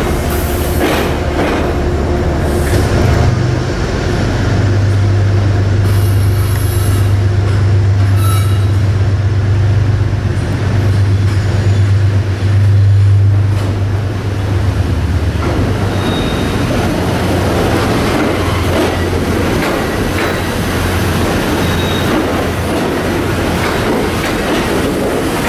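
A passenger train moving on the rails, with a loud steady low rumble through the first half. Brief high wheel squeals come in about six to nine seconds in.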